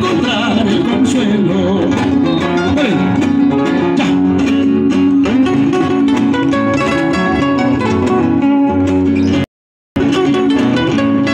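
Acoustic guitars playing an instrumental passage of a southern Peruvian huayno, a plucked melody over chords. The sound cuts out completely for about half a second near the end.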